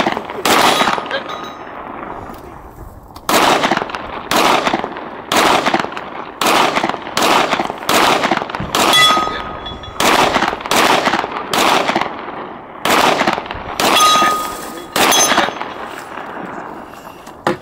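Semi-automatic rifle shots fired in a steady string, about one every half second to one second. There are around twenty sharp cracks, each with a short echo, and a pause of about two seconds soon after the first pair.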